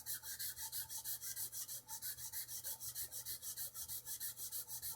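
Sandpaper rubbed back and forth by hand on the wooden neck of a Ural guitar, in quick even strokes of about seven a second.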